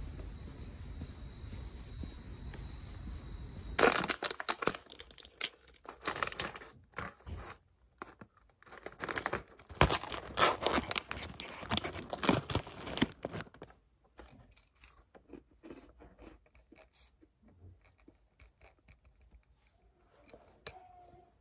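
Crinkling and tearing of wrapping being handled: a dense run of sharp crackles starting about four seconds in, thinning to scattered small rustles after the middle. Before the crackles begin there is a steady low rumble.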